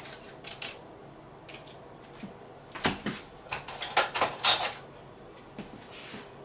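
Lid peeled off a small plastic yogurt cup: a run of short crinkles and light clicks, busiest from about three to five seconds in.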